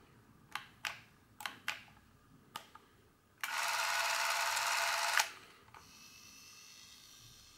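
Braun Nizo 156 Macro Super 8 camera: a series of sharp clicks as its controls are worked, then its motor-driven film transport runs steadily for nearly two seconds and stops abruptly. A much fainter steady whine follows.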